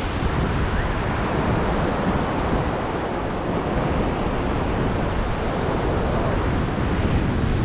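Steady wash of Baltic Sea surf mixed with wind rumbling on the microphone.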